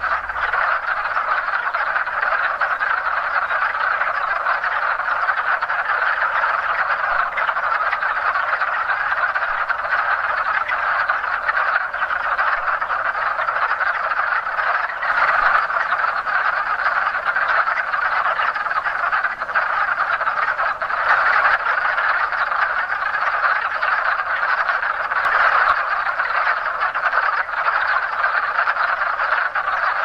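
Chorus of hundreds of male wood frogs giving their mating calls at once, so many overlapping that they run together into one unbroken din.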